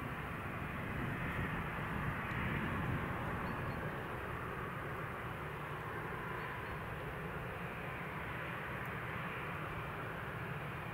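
Airbus A320-216's CFM56 jet engines running steadily as the airliner rolls along the runway after landing: an even, steady noise with no sudden changes.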